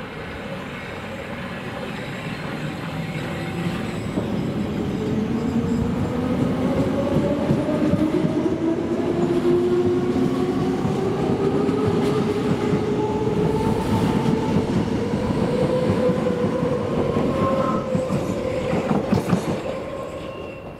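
Hamburg S-Bahn class 472 electric multiple unit running past along the platform, growing louder as it comes close. Its traction motors whine in several tones that rise slowly in pitch, over the clatter of wheels on the rails. The sound fades near the end.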